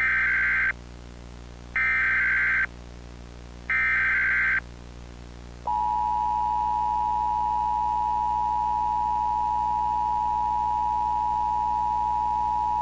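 Emergency Alert System tones: three short bursts of the buzzing SAME digital header, spaced about two seconds apart. About six seconds in, the steady two-tone EAS attention signal (853 and 960 Hz) begins and holds.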